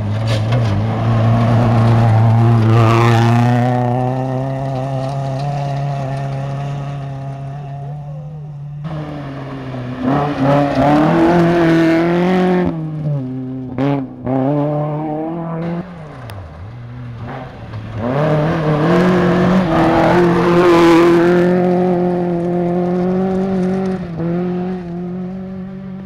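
Rally car engines revving hard through gravel-stage passes, the revs rising and falling over and over with gear changes and lifts off the throttle. The engine sound drops away about eight seconds in, comes back strongly, dips again around sixteen seconds, and rises once more.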